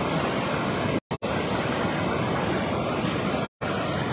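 Muddy floodwater rushing in a steady torrent over and past a concrete weir during a flash flood. The sound cuts out briefly twice, about a second in and again near the end.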